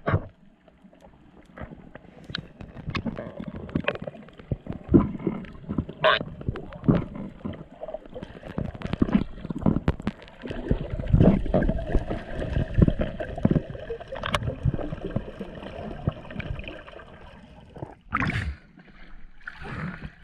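Muffled underwater sound from a camera held by a diver in the water: irregular knocks and thumps with water noise over a faint steady hum, then a sharp splash about eighteen seconds in as it breaks the surface.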